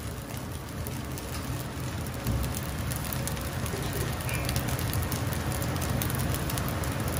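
Gas wok burner running with a steady low rumble while egg fried rice sizzles and crackles in a hot carbon-steel wok, growing a little louder about two seconds in.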